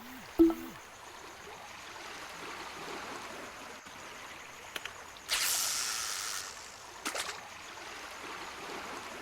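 Running, rushing water, with a short loud sound right at the start and a louder hissing splash about five seconds in, plus a few sharp clicks.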